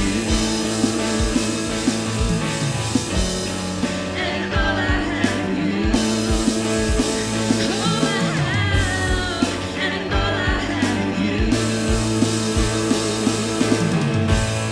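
Live worship band playing rock-style contemporary worship music, with electric guitar, drum kit and keyboard over a steady drum beat.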